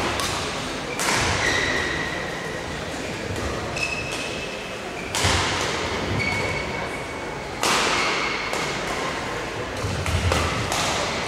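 Badminton rackets striking a shuttlecock in a rally: sharp hits every one to two and a half seconds, echoing in a large sports hall, with short high squeaks after some of the hits.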